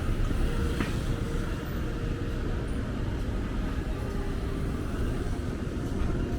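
Steady low rumble of city street ambience with traffic, with a brief click about a second in.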